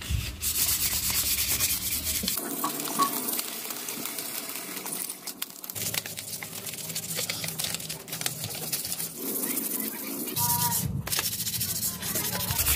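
Sandpaper rubbed by hand over carved wood, a continuous scratchy rubbing.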